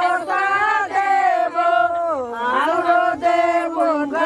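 A group of women singing together in chorus, with long held notes that slide up and down in pitch.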